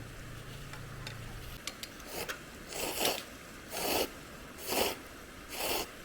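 A person slurping food, a run of about five short airy slurps roughly a second apart.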